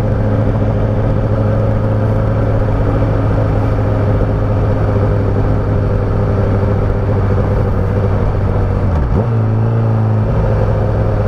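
Motorcycle engine running at steady revs, with wind noise. About nine seconds in the engine note drops briefly, then settles into a steady note again.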